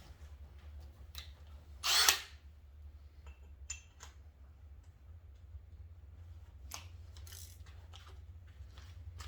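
Scattered small clicks and knocks over a steady low hum, with one short, loud rush of noise about two seconds in.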